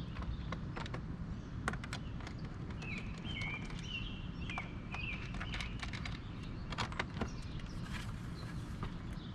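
A bird chirping in short, repeated, stepped notes over a steady low outdoor rumble, with scattered sharp clicks and knocks throughout.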